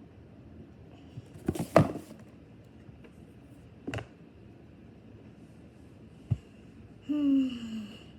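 A few knocks and taps from a plastic slime-supply bottle being handled and tapped to get thick liquid out, the loudest a quick cluster of knocks about two seconds in, with single taps later. Near the end comes a short pitched sound that falls in pitch.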